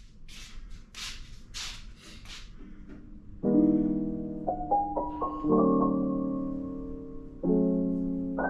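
Background piano music: sustained chords enter about three seconds in and change every two seconds or so. Before the music, a few short, soft swishing noises about half a second apart.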